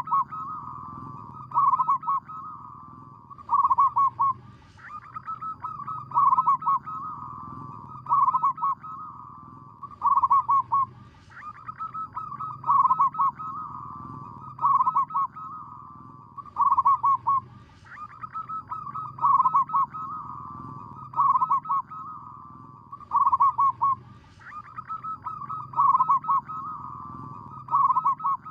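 Zebra dove (perkutut) cooing: a run of rapid, rolling coo phrases, each building to a louder burst, repeating about every two seconds with a brief pause after every few phrases.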